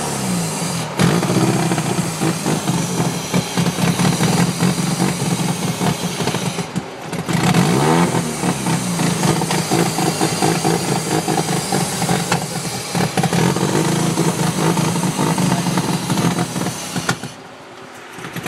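Mazda RX-7 FC's two-rotor 13B rotary engine running and being revved, the revs dipping and climbing again about eight seconds in. It cuts off near the end.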